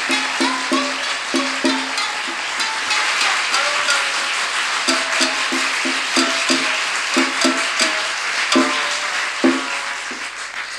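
Rakugo debayashi entrance music: a shamisen plucking a quick, repeated note with drum strikes, over a steady rush of noise. It eases off near the end.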